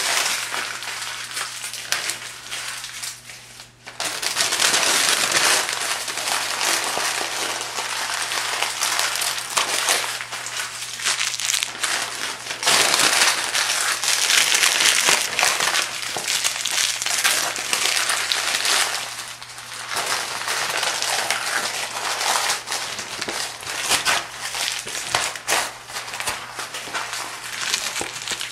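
Heap of crumpled phone book pages being crushed and rustled: dense, continuous crinkling and crackling of thin paper that swells and eases, with a short lull about four seconds in. A faint steady hum runs underneath.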